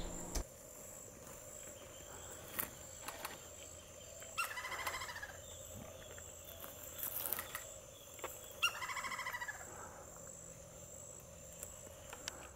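Lineated woodpecker calling: two fast, laughing series of notes, each about a second long and about four seconds apart, with a few sharp clicks between them. A steady thin whine runs behind.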